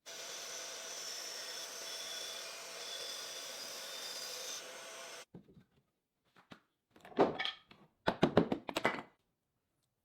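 A power tool runs steadily for about five seconds, then stops abruptly. A couple of seconds later comes a quick cluster of loud knocks and rubbing of wood, as the piece is handled.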